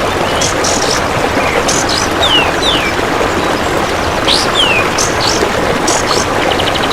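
A kapas tembak bird calling: short, quick downward-sliding whistled notes and sharp high chips, repeated every second or so. Underneath runs a loud, steady rushing noise.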